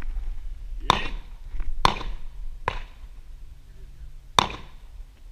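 Four sharp, cracking impacts at uneven intervals, each with a brief ring. The last one, about four seconds in, is the loudest.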